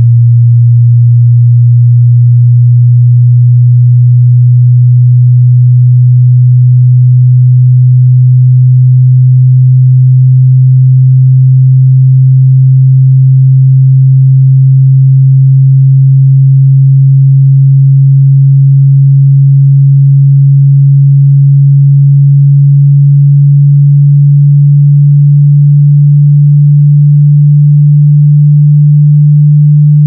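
A single pure sine test tone rising slowly from about 118 Hz to about 148 Hz. It is part of a frequency sweep used to set off rattles and buzzes in a room's fixtures so that they can be found.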